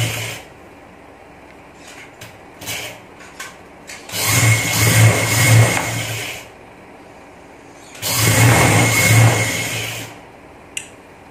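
Electric sewing machine running in short stitching runs as lace is sewn onto cotton fabric: a brief run ending at the start, then two runs of about two seconds each, about four and eight seconds in. Light rustles and clicks in the pauses as the fabric is repositioned.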